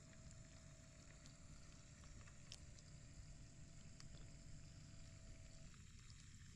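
Near silence: a faint low rumble with a few faint ticks.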